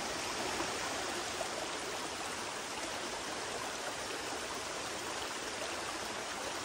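Creek flowing: a steady rush of running water.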